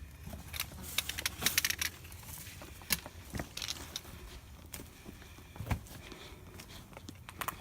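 Metal gear on a hiker's pack jingling and clinking, with scattered knocks of steps on a rocky trail. The jingling is brightest about one to two seconds in.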